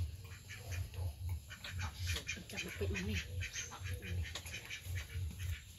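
A quick run of short, clicky animal calls with a few brief pitched squeaks around the middle, over a low pulsing hum.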